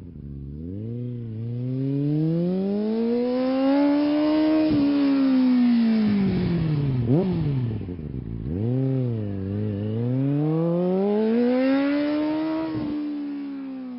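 An engine revving up and slowly back down twice, in long smooth swells of pitch, with a quick sharp blip between the two swells about seven seconds in. It fades out near the end.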